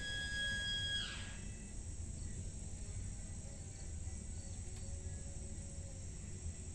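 Noon warning siren holding a steady tone, which cuts off and winds down in pitch about a second in. Insects keep up a steady high buzz behind it.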